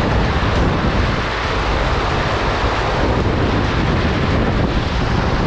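Rushing river water with wind buffeting the microphone, a loud, steady roar.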